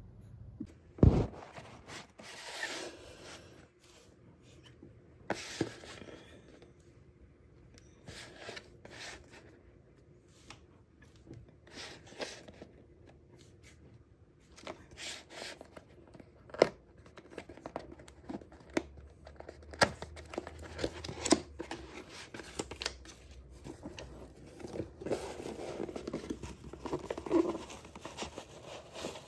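Cardboard product boxes being handled and opened, with scattered sharp knocks and taps. Plastic wrapping crinkles as a lamp is lifted out near the end.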